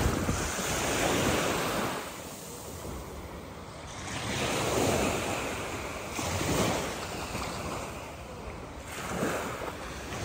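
Small waves washing up onto a sandy beach, the wash swelling and fading every couple of seconds, with some wind on the microphone.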